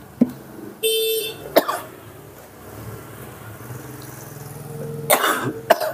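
A short vehicle horn toot about a second in, between sharp knocks; near the end a louder noisy burst and another sharp knock.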